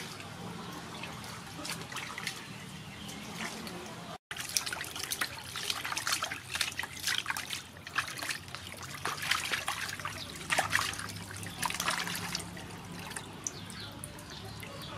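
Water sloshing and splashing in a large aluminium basin as cow legs are washed by hand. The splashing grows louder and busier about four seconds in, after a brief dropout, then eases off near the end.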